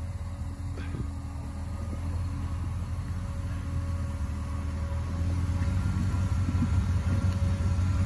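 Off-road vehicle engine running steadily at low revs, growing a little louder about five seconds in.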